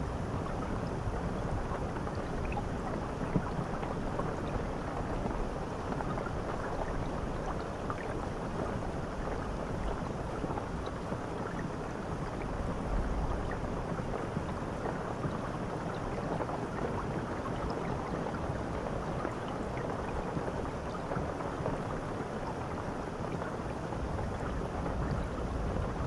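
Water from a handheld shower head spraying steadily onto a tiled wall and shower tray: an even rushing hiss of falling water with a low rumble underneath.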